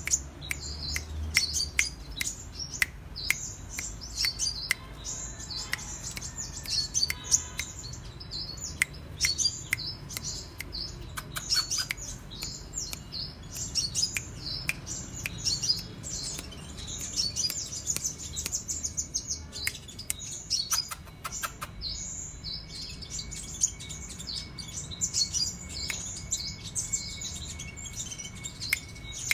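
Sunbird (kolibri raja) singing continuously in rapid, high chattering notes and trills, with sharp clicks among them.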